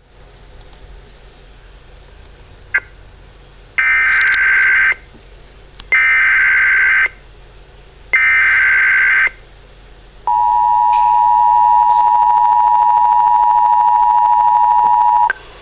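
Emergency Alert System tones opening a weather-radio flood warning. Three one-second bursts of buzzing digital data tones come about a second apart. They are followed by the two-tone attention signal, held steady for about five seconds, all over a faint radio hiss.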